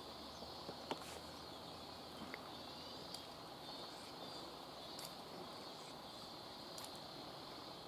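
Faint, steady, high-pitched drone of insects, with a few faint short clicks and taps scattered through it.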